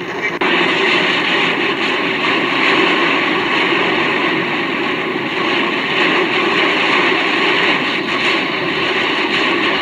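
Heavy rain on a car's windscreen and roof, heard from inside the moving car: a loud, steady hiss of water that starts abruptly about half a second in.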